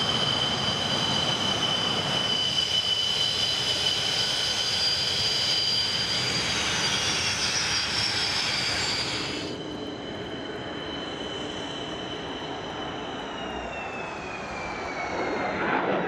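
MiG-29 fighter's twin Klimov RD-33 turbofans running with a steady high whine over a rushing noise. The whine falls in pitch as the jet moves past, twice, and a rougher roar swells near the end as it takes off.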